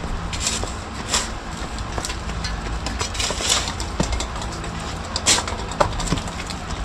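Short scraping and chopping strokes of a hand digging tool working packed soil, a few irregular strokes over several seconds, over a steady low hum.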